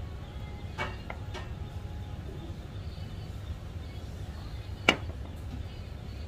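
Steady low hum of room noise, with a few light tableware clicks about a second in and one sharp clink about five seconds in.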